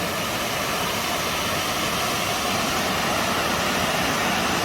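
Middle Force waterfall at Aysgarth Falls on the River Ure, running as a steady, even rush of falling water.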